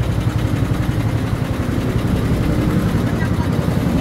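Steady low mechanical rumble of the racing-car ride's small cars running on their track.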